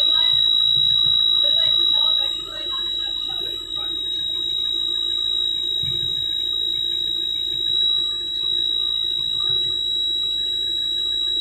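A cab warning buzzer sounding one continuous high-pitched tone, over a low steady hum.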